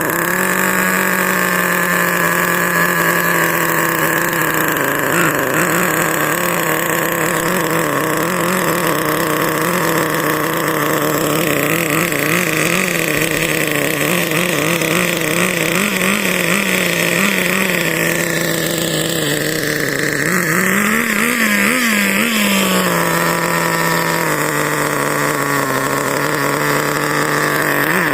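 HSP 94102 Sonic RC car's .18 CXP nitro engine running. Its pitch wavers up and down with the throttle, and it revs up and falls back about twenty seconds in.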